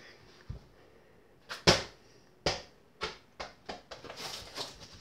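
Irregular thumps and knocks from a child playing with a small ball and an over-the-door mini basketball hoop. The loudest knock comes a little under two seconds in, followed by several lighter ones.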